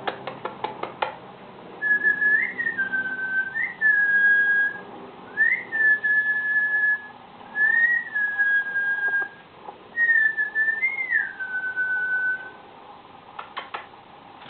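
Cockatiel whistling: about six phrases, each a quick upward flick into a long held note. A quick run of sharp clicks comes at the start and again near the end.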